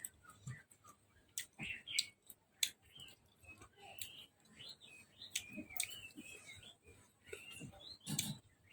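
Scattered sharp clicks and taps, with short high bird chirps from about three seconds in.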